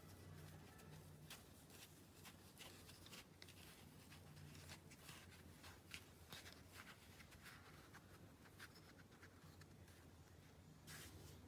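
Faint scraping, rubbing and light clicks of hands handling the plastic and foam parts of a homemade air-rifle suppressor, over a steady low hum.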